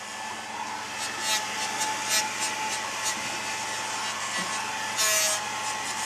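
Hand-held hair dryer running on its cold setting: a steady motor whine under the rush of air, which comes and goes as the dryer is waved around. There is a brief louder hiss about five seconds in.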